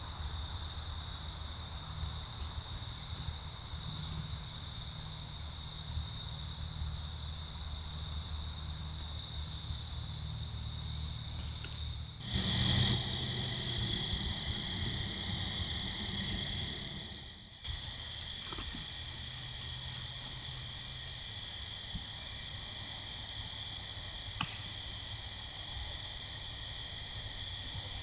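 Steady high-pitched chorus of crickets and other insects over a low rumble. The chorus changes abruptly about 12 and 17.5 seconds in, where separate recordings are spliced together. A single short click comes near the end.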